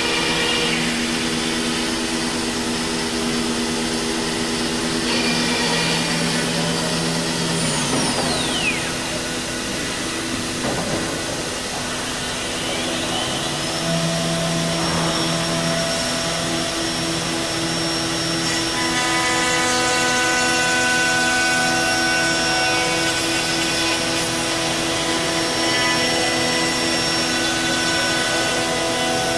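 Biesse Rover 35 CNC machining centre running on a wooden workpiece, a steady mechanical hum with several whining tones over it. About eight seconds in one whine falls away in pitch; near fourteen seconds a new whine rises and then holds steady at a high pitch.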